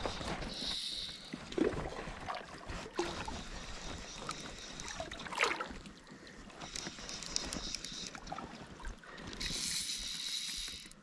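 Water sloshing and trickling around a pontoon boat's floats, with a few light knocks and brief hissy splashes.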